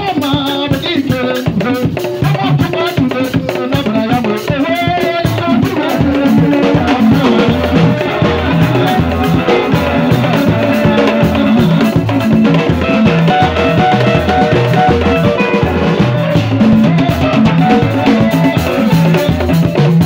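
Live band music with a steady beat: a row of three tall wooden drums beaten with sticks and a drum kit, with a man singing through a PA system.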